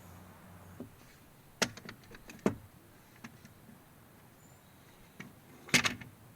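Sharp knocks and clicks of wood and hand tools being handled on a workbench: three loud knocks, one about one and a half seconds in, one about two and a half seconds in and one near the end, with lighter clicks between them.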